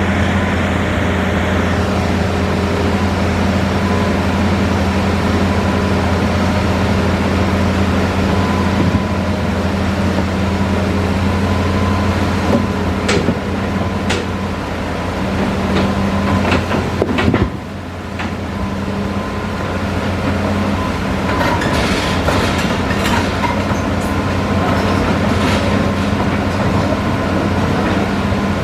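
Hitachi Zaxis 5G excavator's diesel engine running with a steady low drone, with scattered sharp knocks and clatter in the second half as stone is loaded into a dump truck.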